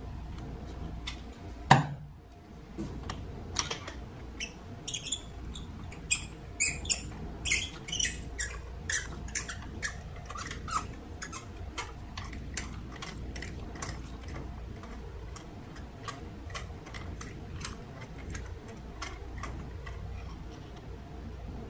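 Ratchet and spark plug socket unscrewing a spark plug from a Volkswagen 1.4 L turbo engine: a run of light metallic clicks, two or three a second, with one louder knock about two seconds in.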